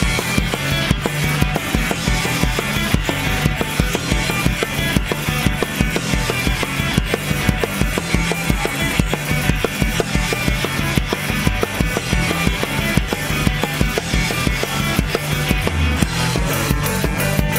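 Fast rock song with guitar and bass, played along to on an acoustic drum kit: busy, driving beats with steady cymbal and drum hits throughout.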